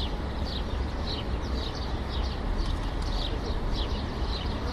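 City street ambience: a steady low traffic rumble with small birds chirping over it in quick, high, downward chirps several times a second.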